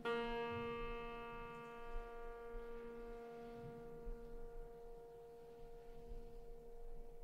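A string inside a Steinway grand piano, sounded by hand, ringing as one bright note with many overtones and slowly fading, over a lower piano tone still sounding from before.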